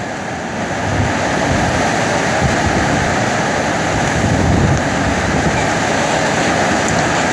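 Strong thunderstorm wind rushing through trees, loud and steady, with gusts buffeting the microphone.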